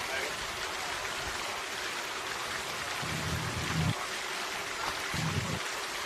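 Steady rushing, rain-like hiss, with two short low hums, the first about three seconds in and the second about five seconds in.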